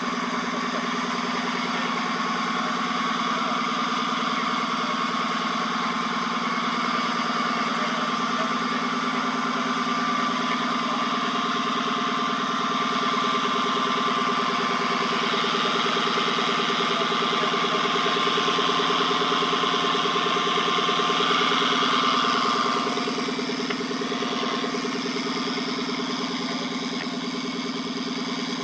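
Drivetrain noise inside the cabin of a 2014 Dodge Charger Pursuit: a steady whine from the driveshaft tunnel over the running engine, growing stronger through the middle and easing off near the end. The owner suspects the driveshaft's carrier (hanger) bearing or a worn U-joint.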